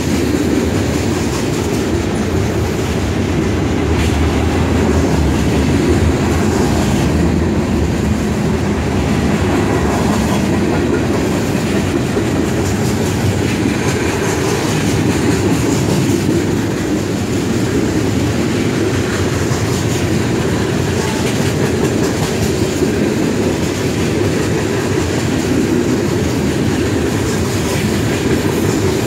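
Mixed freight train cars (tank cars, boxcars, hoppers) rolling past on steel wheels: a loud, steady rolling noise of wheels on rail.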